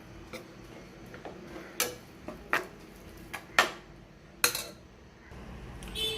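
A spoon clinking and scraping against a kadai as cooked rice is stirred into the lemon seasoning: about six sharp, separate clinks, a second or so apart.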